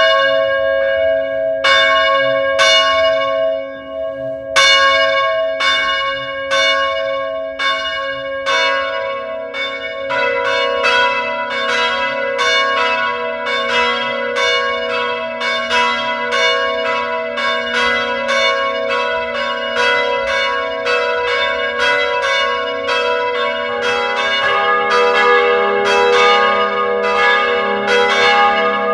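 Church bells ringing: struck tones that each ring on and overlap the next. The strokes come about a second apart at first, then quicken into a rapid, continuous peal about ten seconds in.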